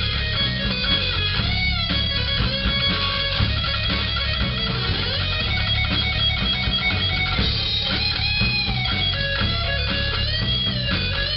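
Rock music with electric guitar.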